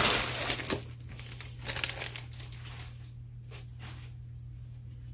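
Clear plastic Ziploc bag crinkling as a sweatshirt is handled and pulled out of it. It is loudest in the first second, then comes as a few brief, lighter rustles.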